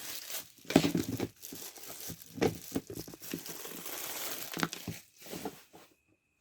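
Packaging crinkling and rustling in irregular bursts as a newly bought steam vaporizer is unwrapped and handled, stopping shortly before the end.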